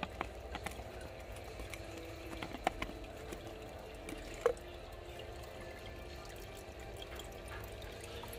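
Saltwater aquarium's filter and pump circulating water with a steady trickle and hum. Over it come a few light clicks and taps as a plastic screw lid is twisted off a jar, the sharpest about four and a half seconds in.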